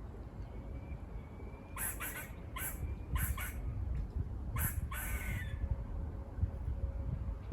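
Squirrel giving a run of short, harsh barking calls, some in quick pairs, from about two seconds in until about five and a half seconds. These are the alarm barks squirrels use.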